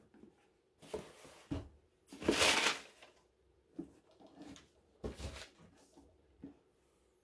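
Cardboard shoebox and its paper lining rustling and scraping as a pair of leather boots is lifted out and set down, in a series of short bursts. The longest and loudest comes about two and a half seconds in.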